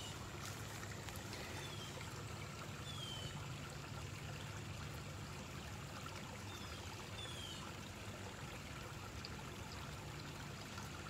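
Steady running water, with short high falling chirps every second or two.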